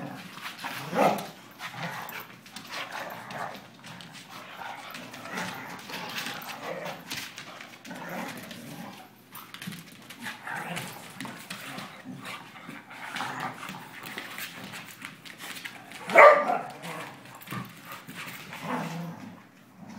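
Two dogs play-fighting, growling at each other, with two loud barks: one about a second in and a louder one about three-quarters of the way through.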